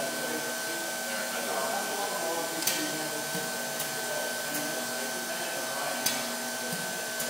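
Steady hum and high whine from a pneumatic automated book-binding machine, with sharp clicks from its air cylinders and valves; two louder clicks come a few seconds apart.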